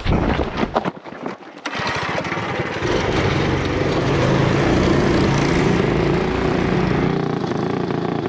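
Small single-cylinder four-stroke mini bike engine starting about two seconds in after a few knocks and clatters, then running and growing louder as the bike rides off over a rocky dirt track.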